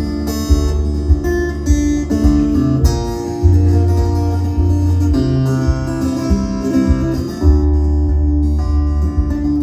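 Acoustic guitar playing an instrumental break in a song, with chords changing every second or so over a steady low bass line and no singing.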